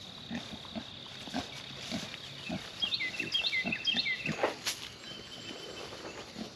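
Kunekune pigs grunting short and low, roughly twice a second, as they crowd in at feeding time. A bird chirps several times in quick succession about halfway through.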